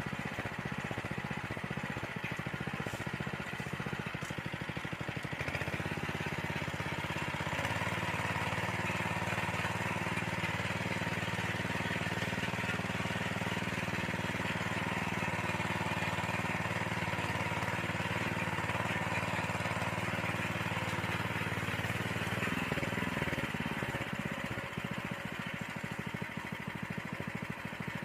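Small engine of a walk-behind motorised tiller running steadily; its pitch steps up about six seconds in and drops back near the end.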